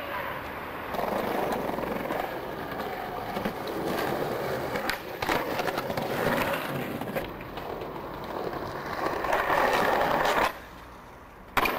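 Skateboard wheels rolling over concrete paving slabs, a steady rumble with sharp clicks as they cross the slab joints. The rolling stops suddenly about ten and a half seconds in, and a single sharp clack follows about a second later.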